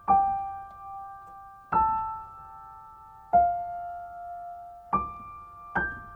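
Soft background piano music: slow chords struck about every one and a half seconds, each ringing out and fading before the next.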